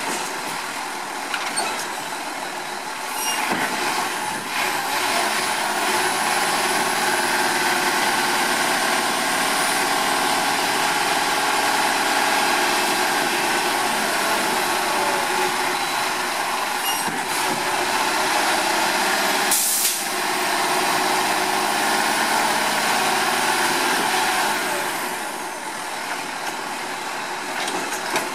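Diesel engine of an Autocar WXLL garbage truck revved up to drive the hydraulics of its Labrie Automizer side-loader while the arm holds a cart over the hopper. The engine speeds up a few seconds in, holds there, and drops back near the end, with a brief burst of hiss about twenty seconds in.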